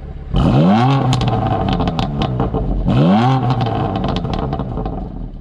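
A car engine revs up sharply twice, about two and a half seconds apart, each rev rising quickly in pitch, then settling with a run of sharp pops.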